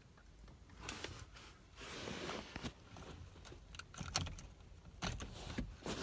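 Scattered light plastic clicks and rattles as the wiring connectors are unclipped from a Toyota Corolla's wiper switch on the steering column, with a brief rustling swell about two seconds in.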